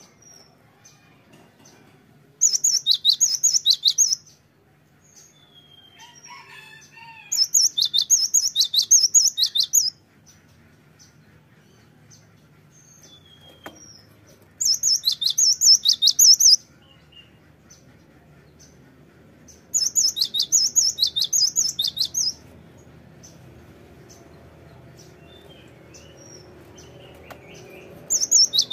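Cinereous tit singing loud bursts of rapid, repeated high notes, each about two seconds long: four bursts, with a fifth starting at the very end, and faint short chirps in between.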